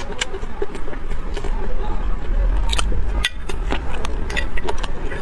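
Close-miked eating: chewing and biting into chilies and egg, heard as irregular sharp clicks and mouth smacks over a low rumble.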